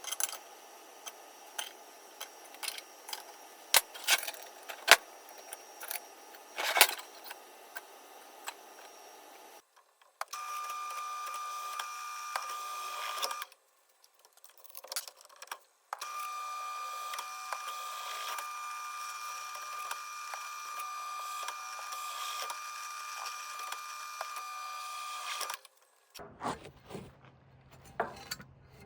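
Power drill motor running steadily in two runs, a short one of about three seconds and then one of about ten seconds: drilling into a concrete block wall for concrete anchor bolts. Scattered light taps and clicks come before the drilling, and a few more after it.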